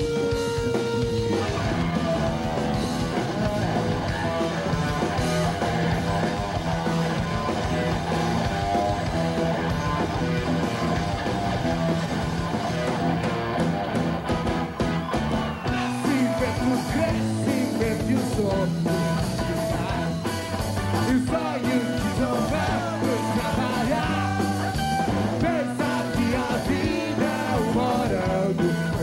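Rock band playing live: a semi-hollow electric guitar plays a lead line over bass guitar and drums.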